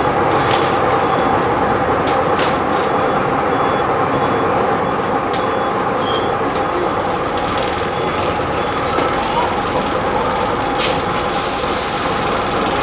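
Bristol VR double-decker bus heard from inside the passenger saloon, its engine running with a steady drone and the body rattling now and then. About 11 seconds in comes a short hiss of compressed air.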